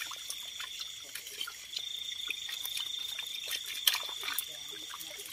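Water trickling and splashing in a shallow muddy pool crowded with small fish, with scattered sharp clicks and splashes, the sharpest about four seconds in. Behind it runs a steady high-pitched trill of night insects.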